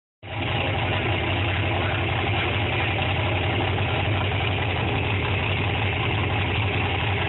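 Off-road race truck engine idling steadily, with a deep, even note and no revving.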